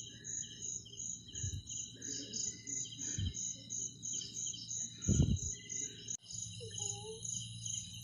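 Crickets chirping in a steady rhythm, about three high pulses a second, with a few dull low thumps, the loudest about five seconds in.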